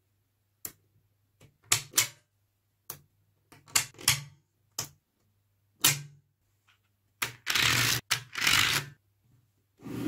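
Small magnetic balls clicking as strips of them are snapped onto a slab of balls: single sharp clicks every second or so, then two longer rattling clatters about three quarters of the way through as the balls are pressed and settle together.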